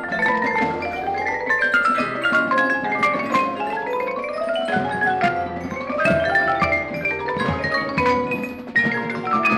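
Marching band front ensemble playing quick rising and falling runs on marimbas and bell-like mallet percussion, with a low bass line beneath.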